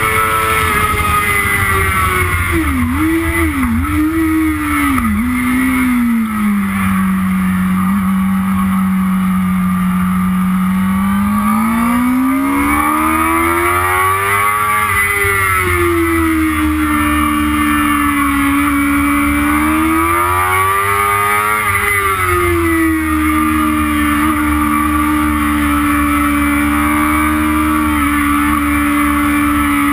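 Yamaha YZF-R6's inline-four engine on track. Its pitch falls in three stepped drops a few seconds in as it changes down, holds low and steady through a corner, then climbs twice under acceleration before settling to a steady higher note. Wind rumble on the bike-mounted microphone runs underneath.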